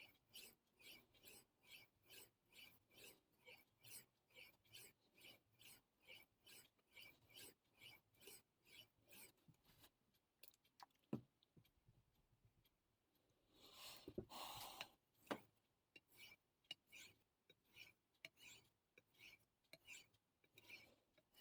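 Knife blade scraped back and forth over a wet Naniwa Superstone whetstone in freehand sharpening strokes, about two to three a second. Halfway through the strokes stop for a few seconds, with a click, a louder longer scrape and a couple of knocks, then the steady strokes resume.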